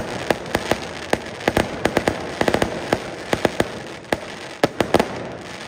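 Aerial fireworks bursting overhead: a quick, irregular run of dozens of sharp bangs over a continuous crackling hiss, with the bangs thinning out near the end.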